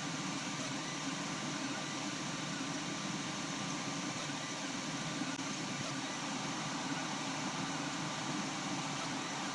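Steady whir of a running fan with a faint high hum held throughout.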